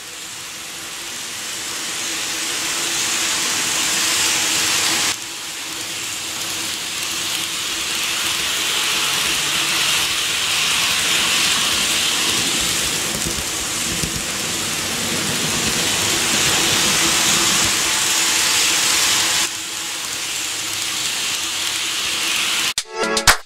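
N gauge model train running on the layout's track: a steady hissing rumble of wheels and motor with a faint hum, swelling and easing as the train passes near. The sound breaks off and resumes abruptly about five seconds in and again near the end.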